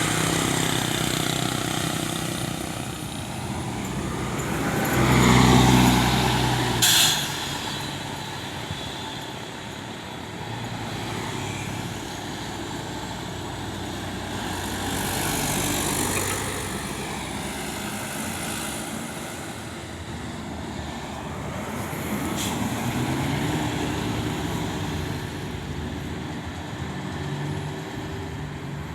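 Buses running in traffic, with a loud pitched blast about five seconds in and short sharp hisses about seven and twenty-two seconds in.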